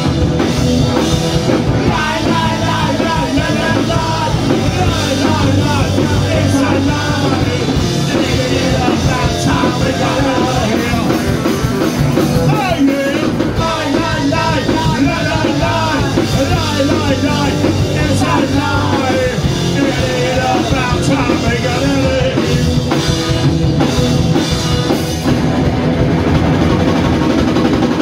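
Punk rock band playing live and loud: distorted electric guitar, bass guitar and drum kit.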